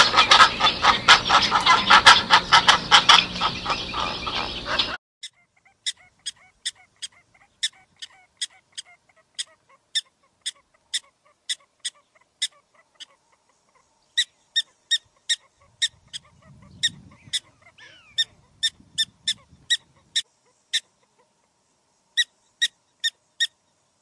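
Painted storks calling loudly together, a dense chorus of honking calls and clatter that cuts off about five seconds in. Then a long series of short, high chirps, about two a second, with a few pauses.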